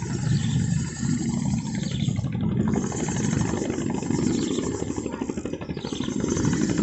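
A small engine running steadily with a rapid, even pulsing beat.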